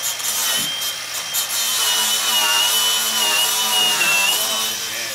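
Angle grinder cutting steel on a pickup truck's rear frame. Its high whine wavers and dips slightly in pitch as the disc bites, over the rasp of the cut.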